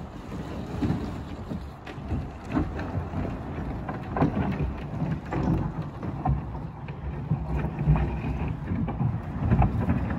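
A heavy wooden floor platform framed with 2x10s is dragged across a dirt and gravel yard on a cable, an uneven scraping rumble broken by knocks, with the towing car's engine running.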